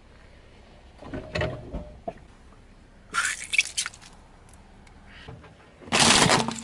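Car tyre rolling over and crushing objects: a squishy jelly toy squashes with a dull thud and crackle about a second in and a sharper crackling about three seconds in, then the loudest sound, a harsh crunch about six seconds in as the tyre rolls onto a hard plastic device with a cable.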